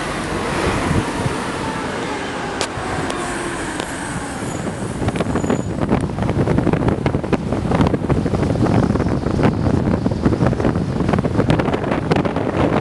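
Open-top bus driving along, its engine and road noise heard from the open top deck, with wind buffeting the microphone that grows heavier and crackly from about halfway through.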